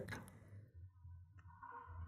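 Near silence with faint clicks from a steel lock pick working the pins inside a Master Lock Model 101 padlock's keyway under light tension, one tick clearer about one and a half seconds in.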